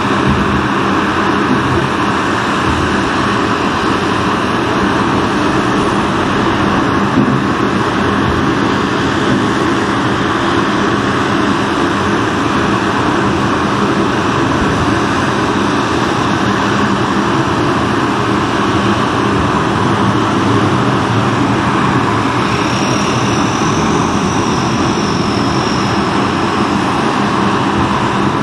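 Shin Maywa US-2 amphibian's Rolls-Royce AE2100J turboprops running, with the No. 1 engine being started and spooling up as its six-blade propeller begins to turn, its sound coming into step with the engines already running. A high whine rises briefly near the end.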